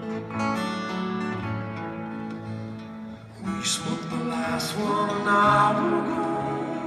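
Live band music led by a strummed acoustic guitar, with a male voice singing, heard as arena concert sound recorded from the audience.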